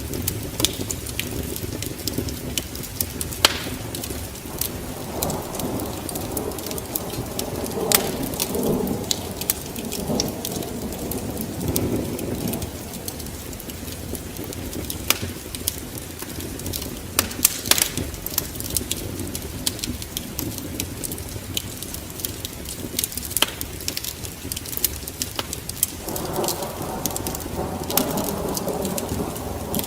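Steady rain, mixed with the scattered sharp crackles of a wood fire. Rumbles of thunder swell about five seconds in and fade by about thirteen seconds, and another rumble starts near the end.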